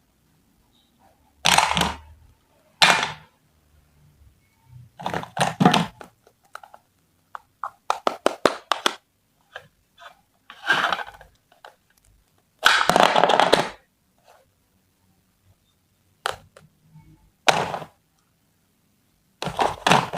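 Plastic toy kitchen pieces and toy fruit being handled: irregular clicks and knocks broken by several short rustling, scraping bursts.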